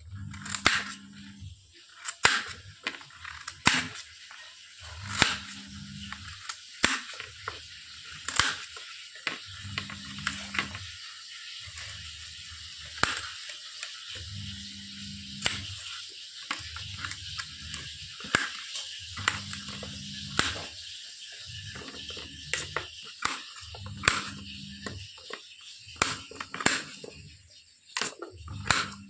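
Knife blade striking a stainless steel plate while chopping beetroot into small pieces: irregular sharp clicks and taps, some louder than others.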